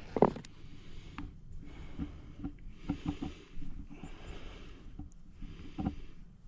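Light rustling and small knocks as hands handle and knot a catfish throw line, with one sharper knock at the start.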